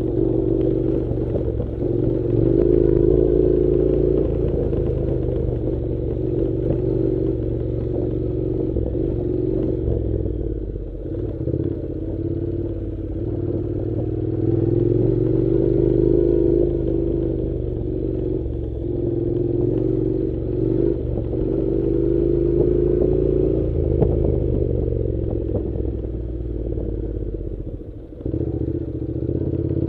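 Honda NC700 parallel-twin engine running as the motorcycle rides a dirt track, its pitch rising and falling with the throttle, with a few knocks and a brief dip near the end.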